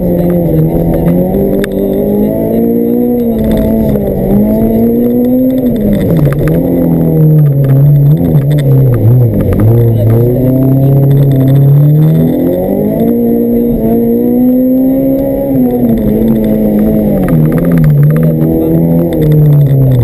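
Honda Civic's B16B 1.6-litre four-cylinder VTEC engine heard from inside the cabin, revving up and down repeatedly under hard driving through gear changes. Its pitch dips lowest about halfway through, then climbs again.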